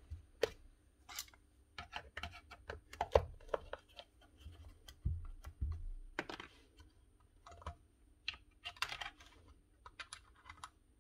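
Irregular light clicks, taps and scrapes of hard plastic and metal parts being handled while a Makita angle grinder is opened up on the bench. A few louder knocks come about five seconds in and again near nine seconds.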